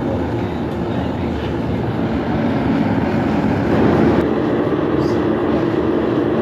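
Steady loud running noise of forge-shop equipment, growing a little louder about three seconds in.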